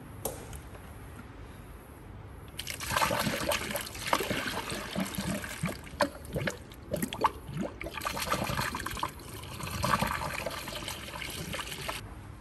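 Water poured from a bucket into a funnel, filling a car's cooling system through the coolant reservoir: a splashing pour that starts about three seconds in, swells and eases, and stops just before the end, with a few sharp knocks along the way.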